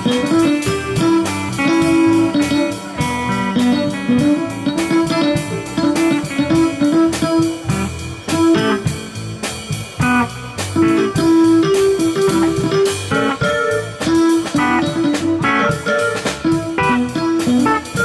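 Electric guitar played live through an amplifier, a steady stream of quick plucked notes.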